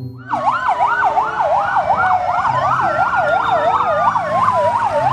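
Fire engine sirens: a fast yelp sweeping up and down about three to four times a second, with a slower wail rising and then falling underneath it, over the low hum of the truck engines.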